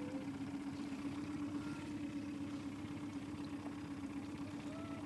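Boat motor running steadily at trolling speed, a constant low hum.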